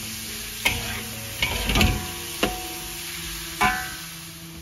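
Metal spatula stirring and scraping through onions frying in a metal wok, with about five sharp clanks of the spatula on the wok, each followed by a short metallic ring, over a low sizzle of the oil.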